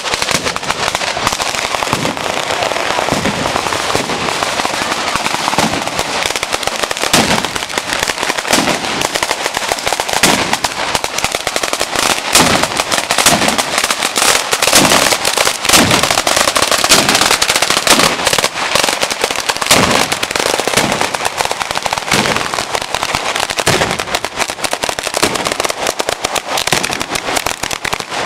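Ground-level firecracker battery (batteria alla bolognese) going off in a dense, continuous crackle of rapid bangs, with heavier booms about once a second, loudest midway.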